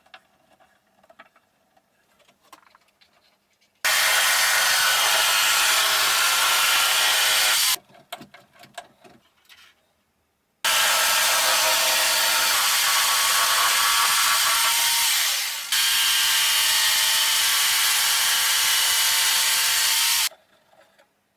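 Electric jigsaw sawing wood in two runs that start and stop abruptly, the second longer and dipping briefly partway through, with light handling knocks and taps in the gaps.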